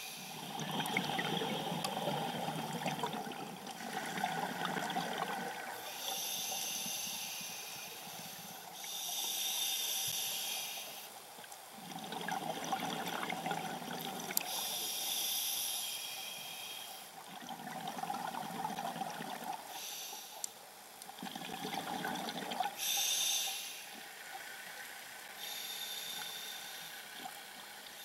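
A scuba diver breathing through a regulator underwater: hissing inhalations alternate with bubbling exhalations in a slow, repeated cycle of several breaths.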